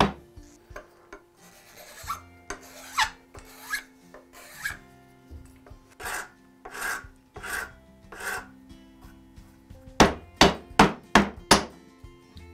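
A hand file rasping across a small block of oak in about seven separate strokes, then a quick run of about five sharp knocks near the end.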